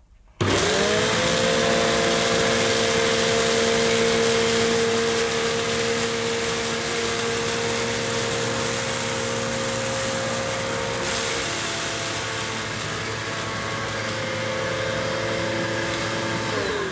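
Hoover Enigma bagged upright vacuum cleaner, a model rated at a noisy 89 dB, switched on about half a second in. Its motor spins up to a steady whine over a loud rush of air as it is run over a hard tiled floor, and near the end it is switched off, the whine falling away.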